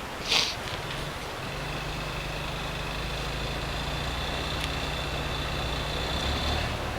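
ATV engine running steadily, its hum growing a little louder, with a high whine held over it. A short sharp noise sounds just after the start.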